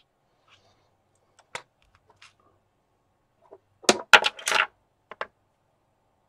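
Magnets and metal parts being handled and set down on a desktop: a few light clicks, then a burst of hard clattering clacks about four seconds in, and two more clicks shortly after.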